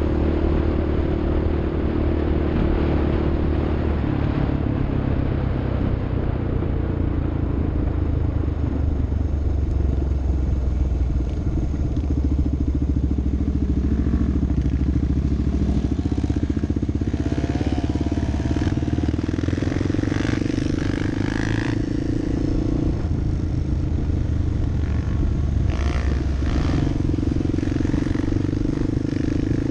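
Off-road vehicle's engine running steadily while under way, its pitch shifting a few times with throttle changes. Rattles and knocks come through around the middle.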